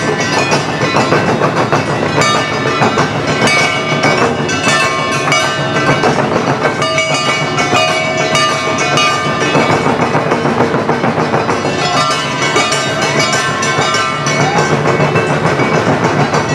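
An Awa odori marching band playing: taiko drums beaten with sticks in a fast, driving rhythm, with held melody notes over the dense percussion.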